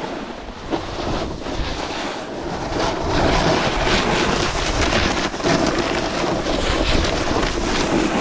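Wind rushing over the microphone while a snowboard slides and scrapes over snow, getting louder about three seconds in.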